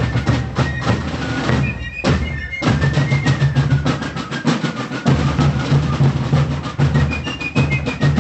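Fife and drum corps playing a march: rapid snare drum rolls and a bass drum under a high fife melody. The drums drop out briefly about two seconds in.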